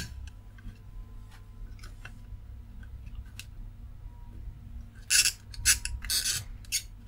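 Soldering iron tip and metal pick clicking and scraping against a circuit board and a diode's leads as the diode is levered out of its solder: a sharp click at the start, a few faint ticks, then a cluster of louder scrapes about five seconds in.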